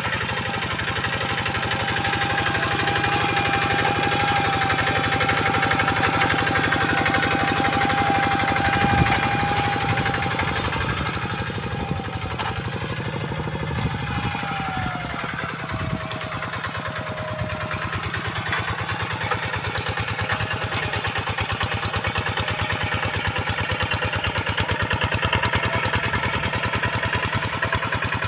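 A hand tractor's single-cylinder diesel engine runs steadily under the work of ploughing a dry rice field, with a fast, even firing beat. A thin whine rides over the engine and dips slightly in pitch around the middle.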